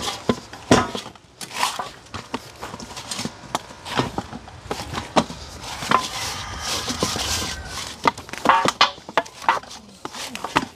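Irregular knocks and clicks, with a soft hiss about six to eight seconds in.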